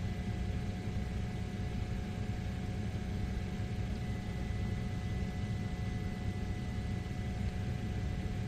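A steady low engine rumble with two faint, constant whines above it, unchanging throughout.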